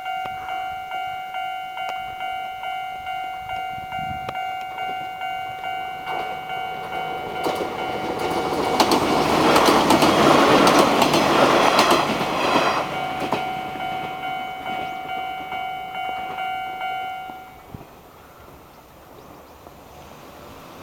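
Level-crossing warning bell dinging in a steady repeated rhythm. A Chichibu Railway 1000 series electric train (ex-JNR 101 series) passes with a clickety-clack of wheels over the rail joints, loudest about ten seconds in. The crossing bell stops about seventeen seconds in.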